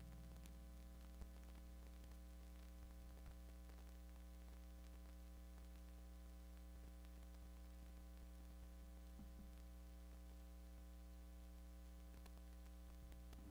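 Steady low mains hum and buzz from an idle bass amplifier rig with no notes being played, with a faint click about a second in.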